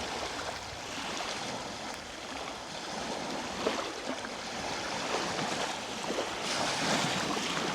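Ocean waves washing onto the shore, a steady rushing wash that swells and eases, with small crackles of water.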